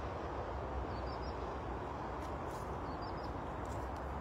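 Steady outdoor background noise with a low rumble, and a few faint, short, high bird chirps every second or two.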